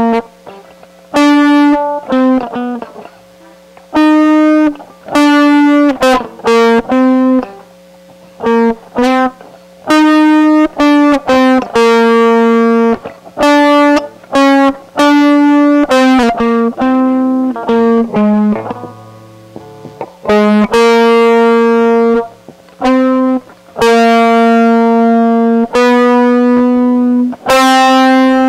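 Solid-body electric guitar played solo: a riff of short, clipped notes and longer held notes that stops and starts, with brief gaps between the phrases.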